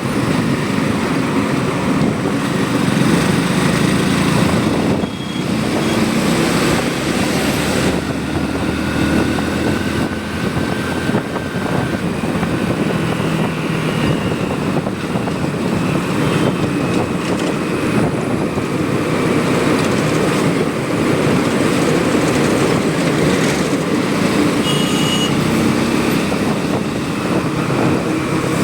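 Motorcycle engine running steadily while being ridden, with continuous road and wind noise; the level dips briefly about five seconds in.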